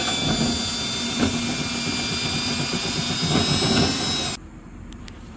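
Power drill spinning dryer-vent cleaning rods fitted with a whisk head inside the lint-clogged duct, a steady high whine with rattling that stops abruptly about four seconds in.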